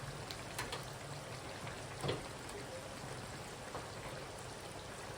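Water being poured into a pot of chicken curry, a steady splashing hiss with a couple of light knocks.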